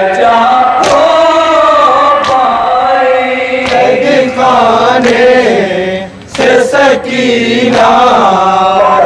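Men's voices chanting a noha (Shia mourning lament) together, with sharp slaps of hands striking chests (matam) at intervals. The chanting breaks off briefly about six seconds in.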